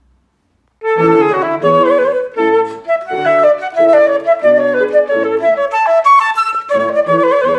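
A flute plays a quick melody of changing notes, starting about a second in, with lower piano accompaniment notes underneath.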